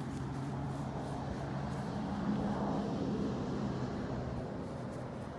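Road traffic: a vehicle's engine and tyres, a steady low hum that grows louder a little past the middle and then eases off.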